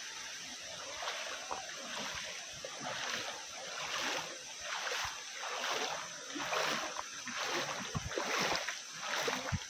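Shallow river water splashing and sloshing as a man wades and hauls a cast net in by its rope, the splashes coming thicker and louder from about three seconds in.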